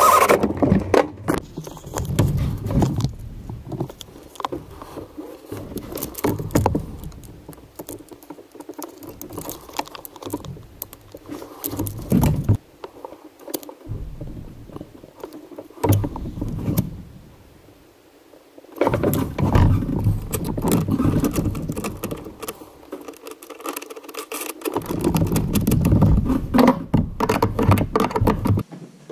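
Metal tools and small hardware clinking, scraping and clicking in irregular bursts as a circuit breaker's terminal is wired and its nut tightened with a wrench.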